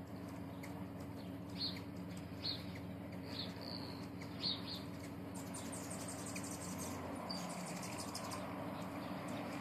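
Hummingbirds around feeders: short high chips a few times in the first half, then a rapid high chatter from about five seconds in. All of it sits over a steady low hum.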